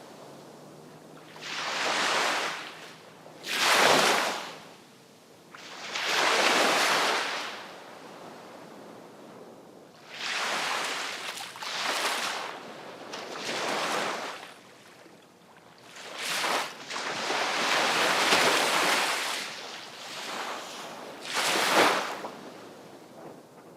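Sea waves breaking on the shore, one after another. Each wave swells into a loud hiss and falls away after a second or two, about nine times, with quieter lulls between.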